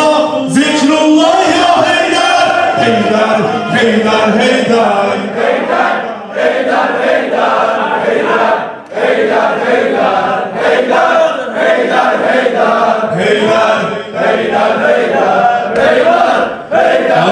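A crowd of men chanting a Shia mourning lament together, many voices in unison.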